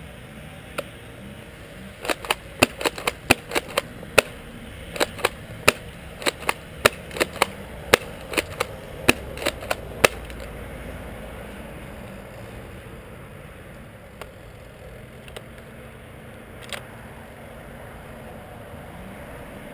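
Bravo tri-shot airsoft pump shotgun being worked and shot, a quick irregular series of about twenty sharp clacks and snaps over roughly eight seconds, then a few fainter clicks near the end.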